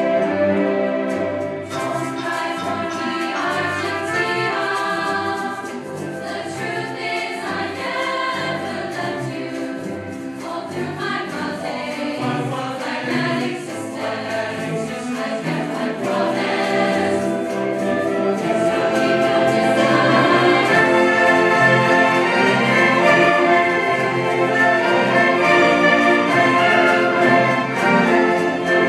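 Student choir singing with a string orchestra playing along, growing louder about two-thirds of the way through.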